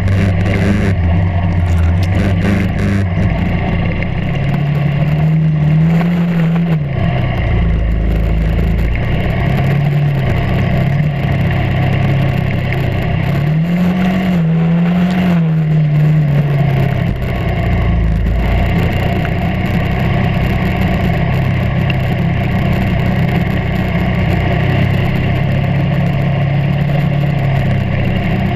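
A kart cross buggy's engine running hard, heard from on board. Its pitch rises and falls three times in the first half as the throttle is worked, then holds steady.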